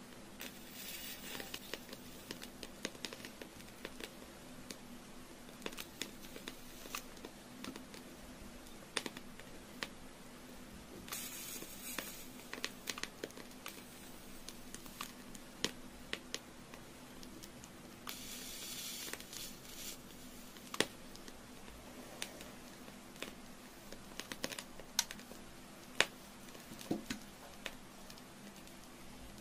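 Burning candle crackling, with scattered small sharp clicks and pops over a faint low hum, and a few brief rustling hisses.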